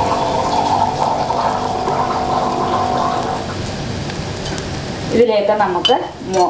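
Sliced onions and curry leaves frying in oil in a steel pan, a steady sizzle. About five seconds in, the sizzle cuts off abruptly and a voice starts speaking.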